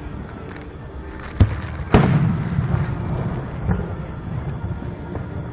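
Fireworks shells bursting: two sharp booms about half a second apart, near a second and a half in, the second louder with a long low rolling rumble after it, over a steady low rumble from the display.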